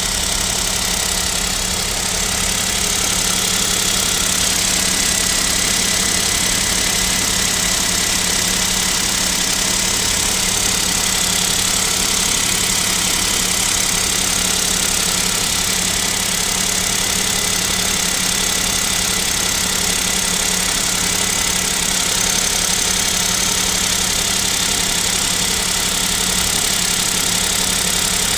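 Kia Picanto's G3LA 1.0-litre three-cylinder petrol engine idling cold at about −7 °C with a steady, even knock, which the owner takes for piston knock (piston slap) and wonders whether it means an overhaul is due.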